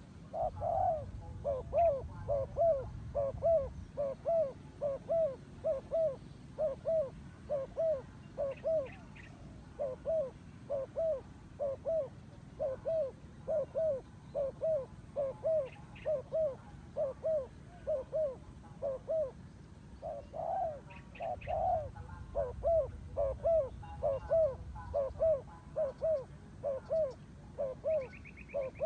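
Turtle dove cooing in a long, steady series of short notes that rise and fall in pitch, about one and a half a second, pausing briefly twice.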